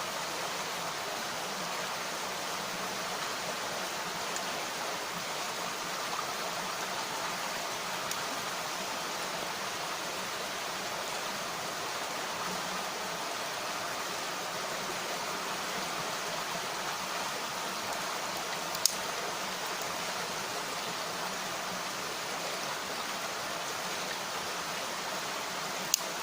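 Mountain stream rushing steadily over rocks, with a couple of sharp pops, one about two-thirds of the way through and one at the very end.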